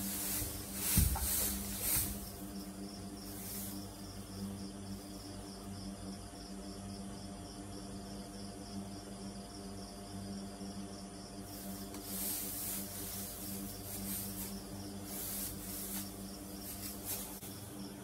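A foaling Arabian mare shifting in deep straw bedding: rustling straw and a dull thump about a second in, with more rustling from about two-thirds of the way through. Under it run a steady low hum and a faint, high, regular chirping.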